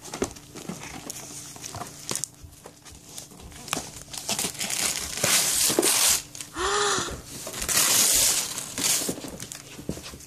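Christmas wrapping paper being crinkled and torn off a gift box by hand, with two louder rips in the second half.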